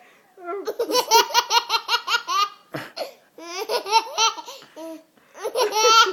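A child laughing hard: three long fits of rapid, high-pitched ha-ha pulses with short breaks between them.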